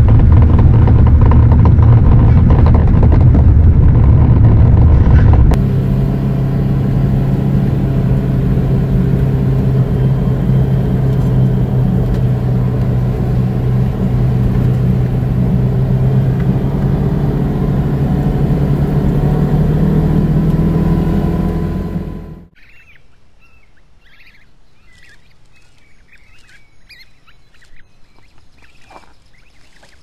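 Mini excavator's diesel engine running loudly, heard from inside the cab. About five seconds in it changes to the steadier, quieter engine hum of a vehicle driving along a gravel road. Around 22 seconds this stops abruptly, leaving faint outdoor ambience with small birds chirping.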